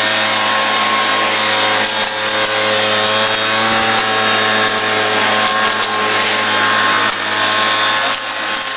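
Mini cotton picker running steadily: a constant motor note over a steady rushing hiss, with a few brief clicks as the picking wand is worked among the cotton plants.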